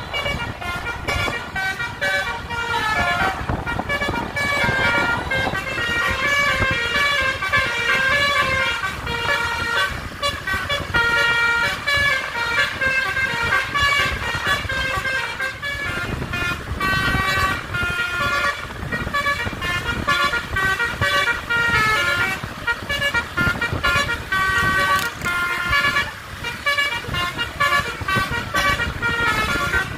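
Basuri multi-tone bus horn playing a melody, its notes stepping up and down continuously, over the low rumble of bus engines and road noise.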